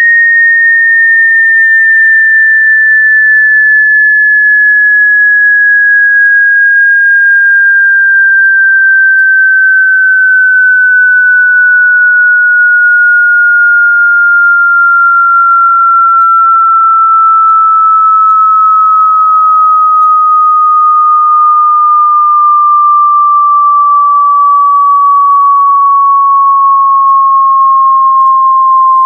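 Electronic sine-wave tone, loud and steady, gliding slowly downward in pitch from about 1.9 kHz to about 1 kHz.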